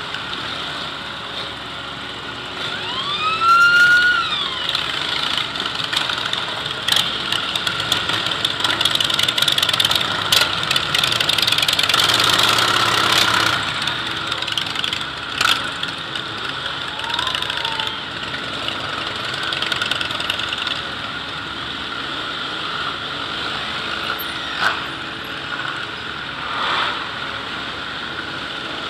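A procession of motorcycles riding slowly past, their engines running and revving, loudest about halfway through. A short tone rises and falls in pitch about three seconds in.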